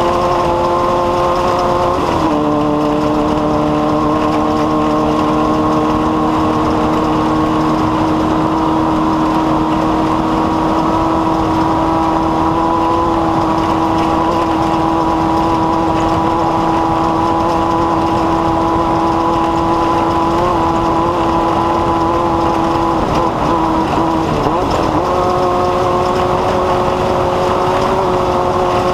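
A small engine running at a steady high speed. Its pitch drops slightly about two seconds in, wavers and dips near the end, then settles a little higher.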